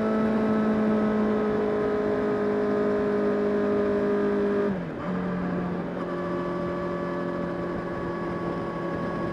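Honda CBR 600 RR inline-four sport-bike engine running under way at steady revs; about halfway through the engine note drops sharply with a brief dip in level, then holds steady at lower revs.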